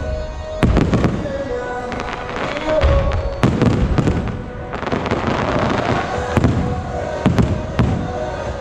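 Aerial fireworks shells bursting overhead: a string of sharp bangs at uneven intervals, with a dense crackle about halfway through. Music with steady held notes plays throughout.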